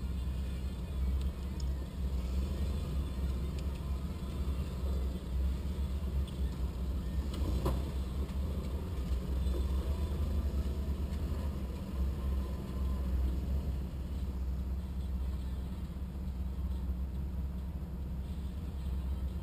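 A 4x4's engine idling with a steady low rumble under the hood, with one sharp click about eight seconds in.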